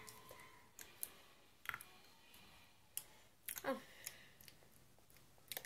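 Faint, irregular clicks and taps from a small cosmetic container being handled while someone struggles to get it open.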